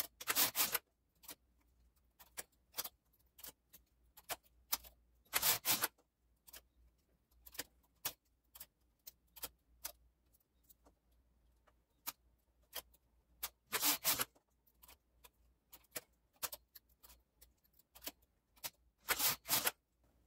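Knitting machine carriage pushed across the needle bed four times, each pass a rattle of about a second. Sharp clicks of needles and transfer tools being handled come between the passes.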